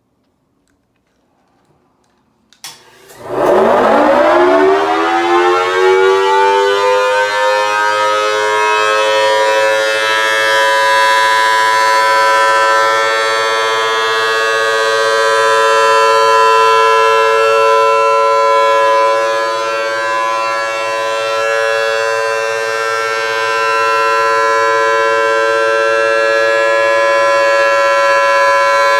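Homemade miniature Thunderbolt-style siren with a metal horn starting up about three seconds in, its pitch rising quickly and then holding as a loud, steady wail of several tones. The sound swells and fades slightly as the horn rotates.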